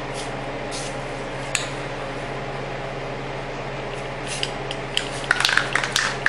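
Aerosol spray-paint can being shaken, the mixing ball rattling inside it in a quick run of sharp metallic clicks that starts about five seconds in. Before that, only a few light clicks over a steady low hum.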